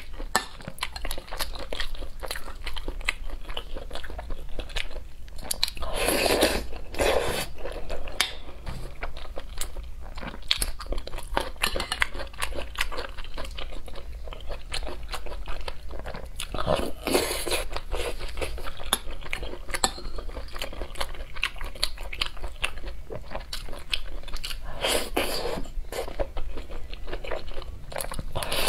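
Close-miked eating: chewing and mouth sounds as spoonfuls of rice in broth are eaten, with three louder bursts spread through.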